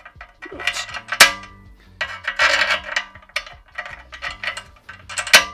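Small steel bolts, washers and nuts clinking and rattling as they are handled, in several short spells, with sharp clicks about a second in and near the end.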